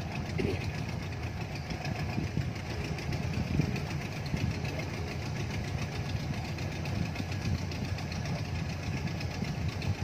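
Small boat's motor running steadily as the boat cruises slowly across the lake.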